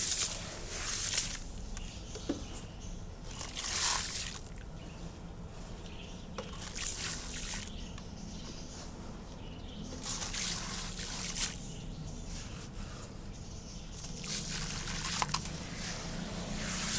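Black concrete being poured into water in separate pours, one every three or four seconds.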